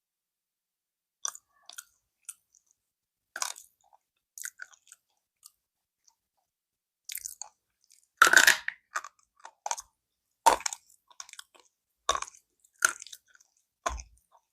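Close-up chewing and biting of slate pencils: a dozen or so short, crisp crunches with silent gaps between them, the loudest and longest a little past halfway through.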